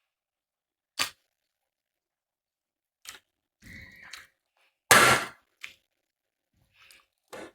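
Close-miked eating of grilled chicken: a sharp crack about a second in, a soft crackle, then the loudest crunchy bite near five seconds and a few small clicks, each separated by silence.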